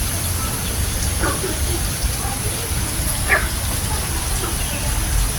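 Frog calling: two short calls about two seconds apart, over a steady high hiss and a low rumble.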